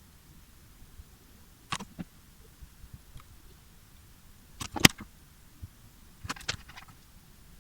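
A few sharp clicks and snips from a small hand tool cutting and stripping the insulation off two thin wires in a laptop charger cable: one about two seconds in, the loudest pair about five seconds in, and a short cluster near the end.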